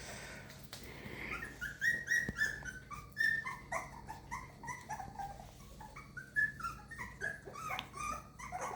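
Several young puppies whimpering together in a chorus of short, high, falling squeaks that overlap, starting about a second in.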